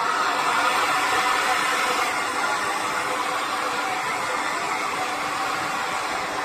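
Hair dryer running: a steady rush of blown air with a faint motor whine.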